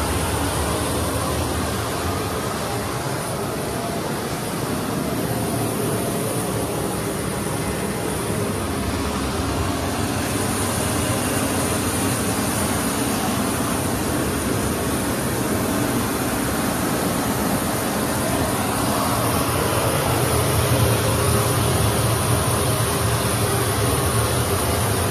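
Steady jet aircraft noise with a constant high whine over a low rumble.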